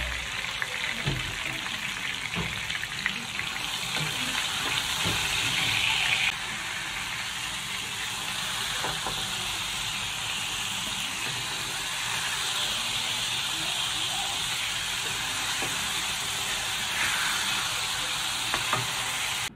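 Hot oil sizzling steadily as tomato wedges, red chillies and shallots fry in a wok, with light knocks and scrapes of a wooden spatula. About six seconds in the sizzle drops a little, while the fried ingredients sit in a wire strainer over the oil and are pressed with the spatula.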